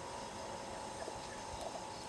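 Outdoor field ambience: a steady insect drone with faint, rapidly pulsed chirps, typical of crickets or katydids.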